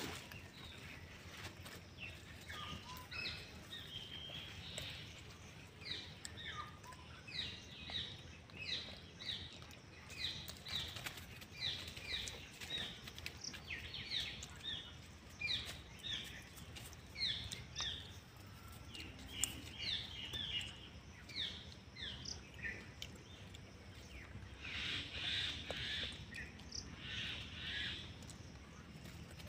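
Birds chirping: a steady series of short, high, falling notes, denser near the end, over a faint outdoor background.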